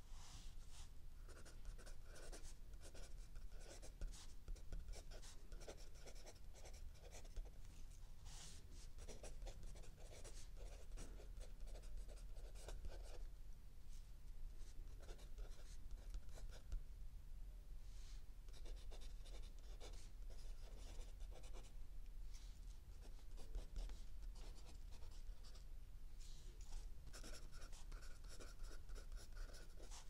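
Mechanical pencil writing on lined notebook paper: a run of short scratching strokes that eases off for a few seconds a little past the middle, then picks up again. A faint low hum runs underneath.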